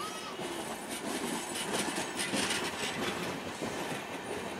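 LHB passenger coaches of an Indian Railways express rolling past at speed, their wheels rumbling and clattering on the rails, loudest about two seconds in.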